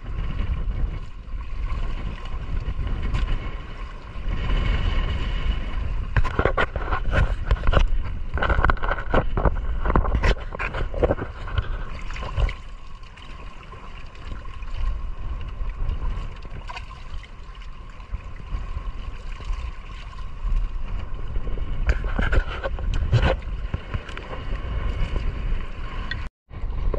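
Water splashing and sloshing as a wire-mesh fish trap with live fish in it is lifted up against a wooden outrigger boat, with scattered knocks and rattles of the trap against the hull. A steady low rumble of wind and sea runs underneath.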